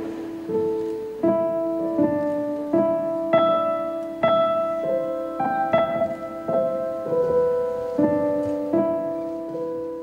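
Slow piano music: a melody of single notes struck about every three-quarters of a second, each left to ring into the next.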